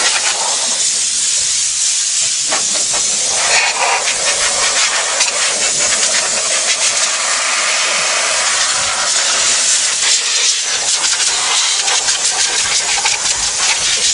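Compressed air from an air-hose blow gun hissing continuously as debris and mouse mess are blown out of the car.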